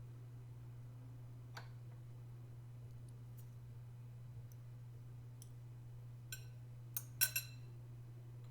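A few light clicks and clinks of the metal parts of an electric meat grinder being handled during disassembly, with a quick cluster of them about seven seconds in, over a steady low hum.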